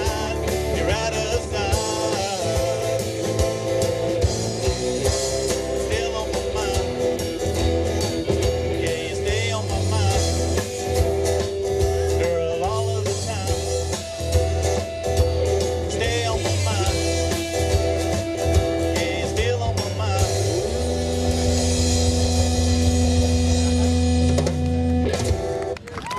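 Live rock band playing: electric and acoustic guitars, bass guitar and drums, with a wavering, bending lead line over the band. About twenty seconds in, the band hits and holds a final chord with cymbals washing over it, which cuts off abruptly near the end.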